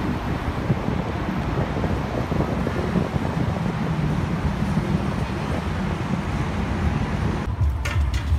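Steady rumble of road traffic. Near the end it gives way to a quieter background with a few short, sharp clicks.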